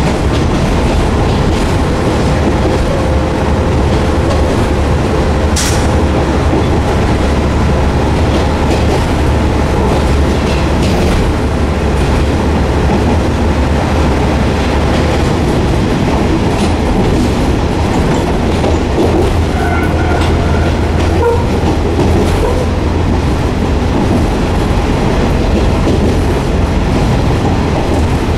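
Diesel railcar running, heard from inside the passenger car: a steady low engine drone over wheel and rail noise. The engine note drops away for a few seconds about halfway through, then comes back, and there is one sharp clank about six seconds in.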